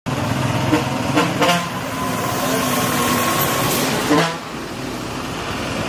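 Street traffic with a vehicle horn sounding steadily for about two seconds, starting about a second and a half in.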